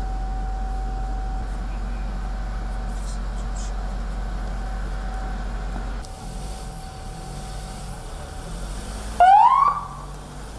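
Ambulance siren giving one short, loud rising whoop about nine seconds in. Before it there is a steady low hum with a thin steady tone.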